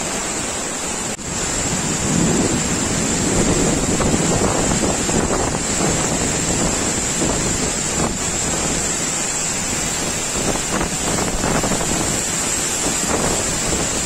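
Khandadhar waterfall in heavy spate after rain: a steady rushing roar of a large volume of water pouring down a broad rock face.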